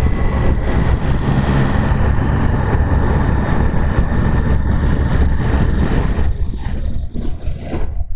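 Triumph Tiger Sport 660 ridden at speed: wind rushing over the microphone on top of the running three-cylinder engine. The rush eases and breaks up about six seconds in.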